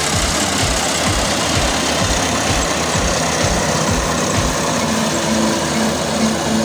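An engine running, with a steady loud noise and low regular thuds about three times a second that give way to an on-and-off low hum about two-thirds of the way through.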